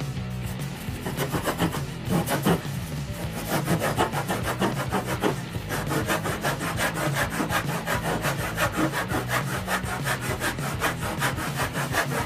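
Hand saw cutting across a softwood block, its teeth rasping in quick, even back-and-forth strokes as it cuts a shallow notch. The strokes start light and settle into a steady fast rhythm after about a second.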